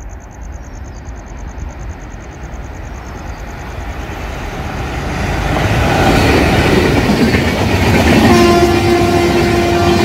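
Indian Railways electric-locomotive-hauled express train approaching and passing at speed: the rumble of wheels on the rails builds from about four seconds in into the loud rush and clatter of the coaches going by. About eight seconds in, a steady horn blast starts and holds over the noise of the passing coaches.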